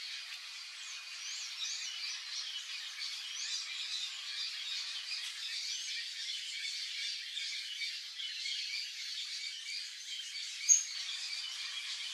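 Birds chirping and squawking in a busy, continuous chorus of high, short notes and quick up-and-down calls, with one loud, sharp high note about ten and a half seconds in.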